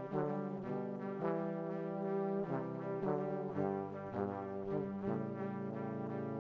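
Background music of held chords that change every second or so.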